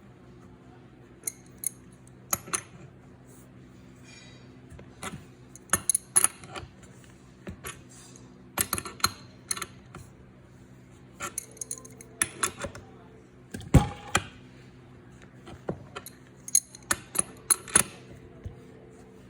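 Irregular sharp metallic clicks and clinks of a wrench and metal fittings being handled and threaded onto an oxygen concentrator compressor, coming in small clusters with the loudest knock about 14 seconds in. A steady low hum runs underneath.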